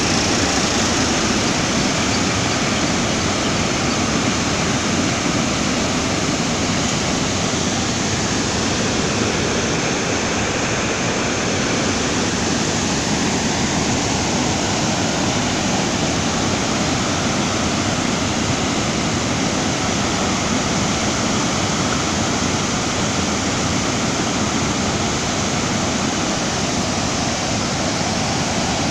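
Muddy monsoon floodwater rushing through the open spillway gates of a hydroelectric dam and churning in the plunge pool below: a loud, steady rushing roar with no let-up.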